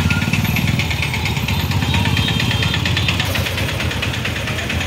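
A motor vehicle's engine running close by, a steady rapid pulsing, amid street traffic.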